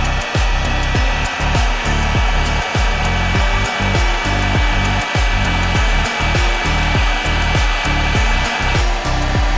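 Background music with a steady, pulsing bass beat about twice a second over a constant hiss.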